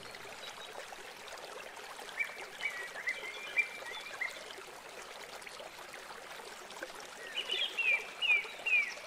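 Stream running steadily, with a bird chirping in two short runs of quick notes, the first about two seconds in and the second near the end.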